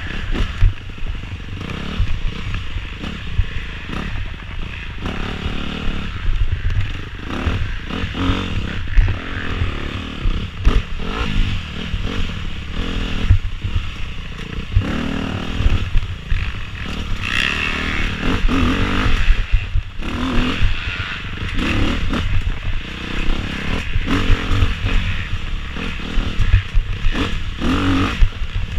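Dirt bike engine revving up and down again and again as it is ridden hard along a rough wooded trail, under constant knocking and clatter from the jolts over the ground.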